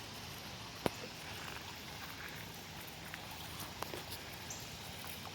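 Steady rush of flowing water, with scattered light clicks and one sharper tap about a second in.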